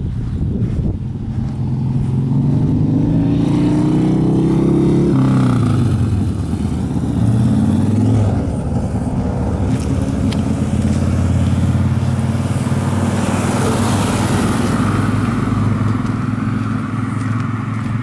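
A motor vehicle's engine accelerating, its pitch rising for several seconds and then dropping abruptly about five seconds in as it shifts up. It then runs on steadily, with a rush of tyre noise swelling around fourteen seconds in.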